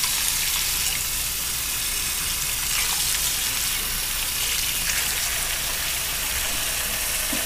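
Bathroom faucet running a steady stream into the sink, splashing over fingers that scrub a small plastic mouse scroll wheel under it. The hiss of the water is even and unbroken.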